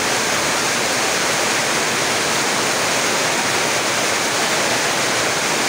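Heavy rain falling, a loud, steady hiss that drowns out everything else.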